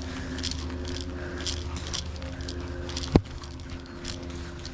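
Footsteps swishing through grass at a walking pace, with a single sharp click about three seconds in.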